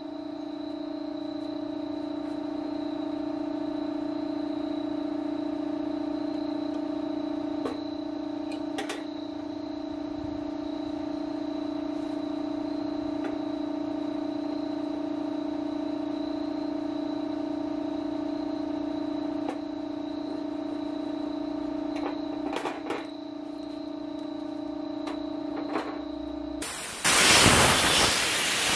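A steady mechanical hum with a few light clicks of small metal parts being handled, then near the end a loud, steady hiss as a compressed-air siphon spray gun with a plastic-bottle reservoir starts spraying.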